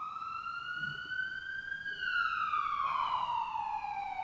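A siren wailing in a slow up-and-down sweep: it rises for about two seconds, then falls for about two seconds.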